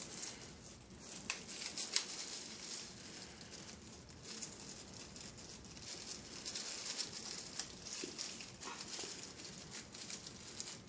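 Faint handling noise: light crinkling and a few small clicks and taps, the sharpest a little after one second and at about two seconds.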